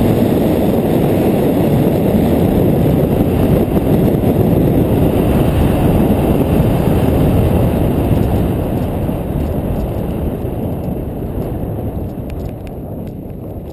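Wind rushing over the microphone of an action camera carried by a skier going downhill at speed, a loud, steady rumble. It fades gradually over the last few seconds as the skier slows, with a few faint clicks near the end.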